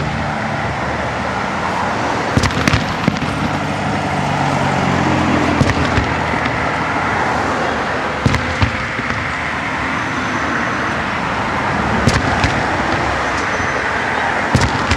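Fireworks shells bursting with sharp bangs every few seconds, some in quick pairs, over a steady wash of road traffic. A car engine hums close by during the first few seconds.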